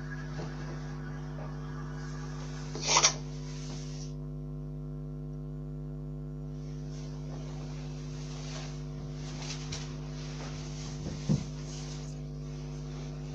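Steady electrical hum with room noise. A short, sharp noise stands out about three seconds in, and a smaller one comes about eleven seconds in.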